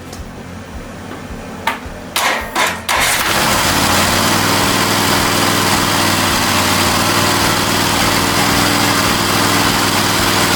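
Cub Cadet RZT S riding mower's twin-cylinder engine, sprayed with starting fluid after a valve adjustment. A few clicks, then about three seconds in the engine is cranked and turns over with a loud, steady drone that rises briefly in pitch and then holds. It turns over a little easier now that the valves are adjusted.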